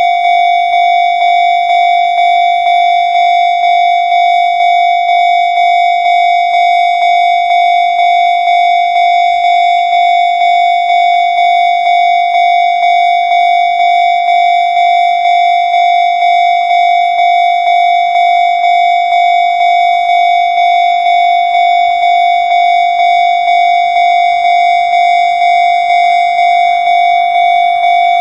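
Japanese railway level-crossing electronic warning bell, the Chichibu Railway's own 'Chichibu' tone, ringing steadily at about two strikes a second. Each strike is a bright, ringing tone: the crossing is active, warning of an approaching train.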